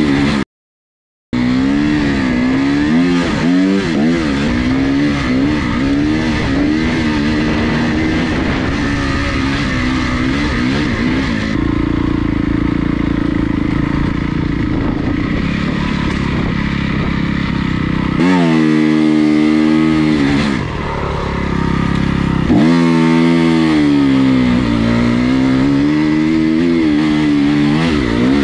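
Honda CRF250R four-stroke single-cylinder dirt bike engine being ridden hard, revving up and down with the throttle so its pitch rises and falls again and again. There is a brief silent gap about a second in.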